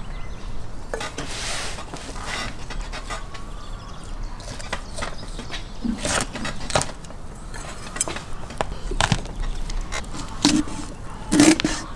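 Large knife cutting and scraping along a whole raw lamb carcass, with scattered short knocks and scrapes as the meat is handled.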